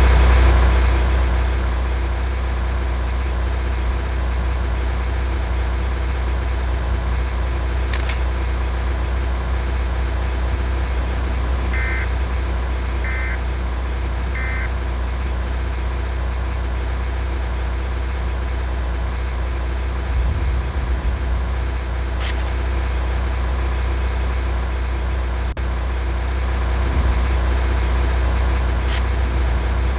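Steady low rumble of a car's engine and road noise heard from inside the vehicle, with three short beeps in a row near the middle and a few faint clicks.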